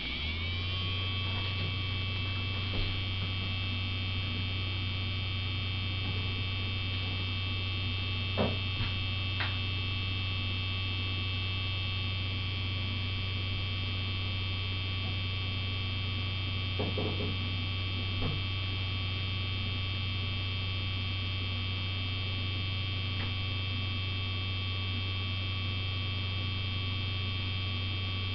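Guitar pickup winder's motor and spindle spinning up to full speed within the first second, then running steadily at about 4,100 RPM: a steady low hum with a steady high whine over it. A few faint clicks come along the way.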